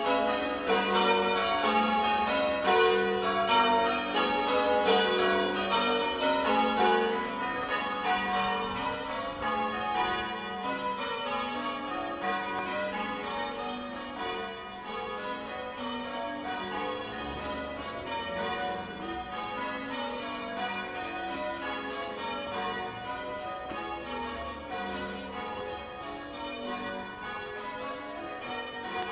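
Church tower bells rung full circle by ropes, a continuous peal of overlapping strikes that grows gradually fainter from about ten seconds in.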